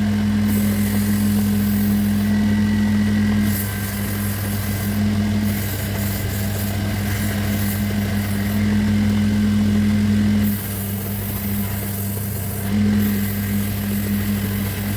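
Electric woodworking machine running with a steady low hum. Over it comes a hissing noise that starts and stops every second or few, as the tool bites into the wood and comes away again.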